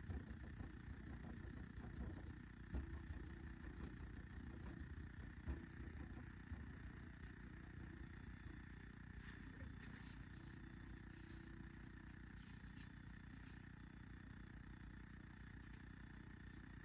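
Faint steady low hum of room noise, with a few soft knocks in the first several seconds.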